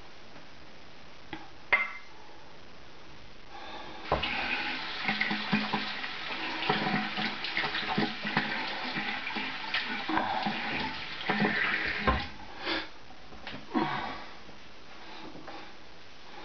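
Boar-bristle shaving brush working wet shaving-soap lather over the face and neck: a wet brushing that starts about four seconds in, runs for about eight seconds, then trails off in a few short strokes. A single click comes near the start.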